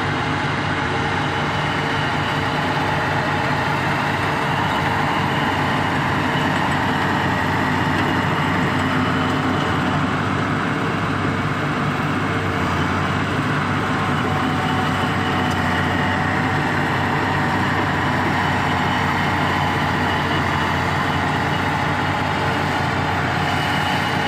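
Komatsu D70LE bulldozer's diesel engine running steadily at an even level throughout.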